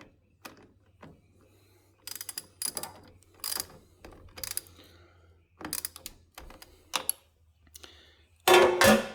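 A string of sharp clicks, taps and short metallic rattles of hand tools and parts being handled, with a louder metal clank that rings briefly near the end.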